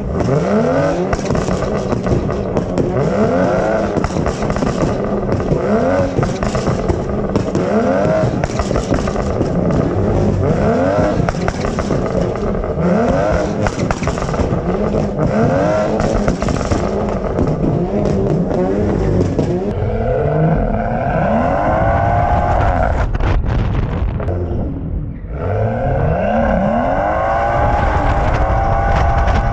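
A car engine revved hard again and again, its pitch climbing about every second and a half. About 25 seconds in it drops off briefly, then climbs again in one longer pull.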